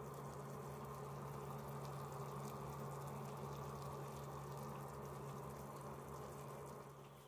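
Lemon-and-sugar syrup at a rolling boil in a stainless steel pot, bubbling steadily and fading a little near the end.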